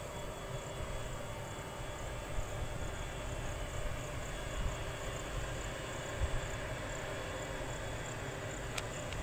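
Twin-section WAG12 electric locomotive standing under the wires with its pantograph up, giving a steady hum with faint tones over a low rumble.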